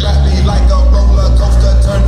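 Loud dance music with a strong, steady bass.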